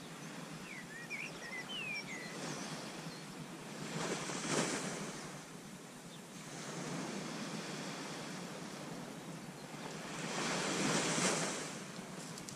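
Sea waves breaking on a sandy beach, the wash swelling twice, about four seconds in and again near the end.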